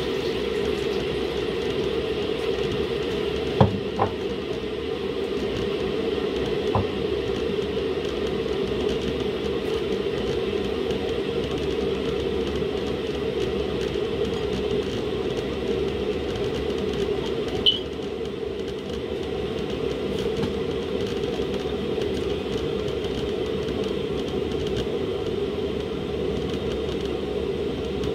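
Steady rushing noise from a gas hob where a lidded pot of soup is boiling hard. A few light knocks come about four and seven seconds in, and a short high clink near eighteen seconds.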